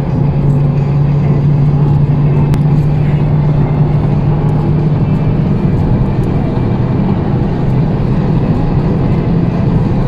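Honda Civic Type R at full speed on the highway, heard from inside the cabin: a steady low engine drone under loud road and wind noise as the car accelerates past 200 km/h. The engine's hum is clearest in the first half, then blends into a broader rumble.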